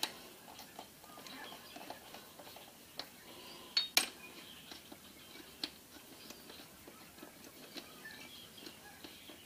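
Small metal clinks and taps as a connecting-rod cap and its oiled bolts are fitted by hand onto the crankshaft journal, with a pair of sharper clicks about four seconds in.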